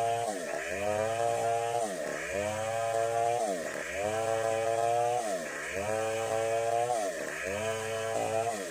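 Stihl 070 two-stroke chainsaw running hard, its pitch dropping and climbing back about every second and a half, as the engine is repeatedly loaded and revved.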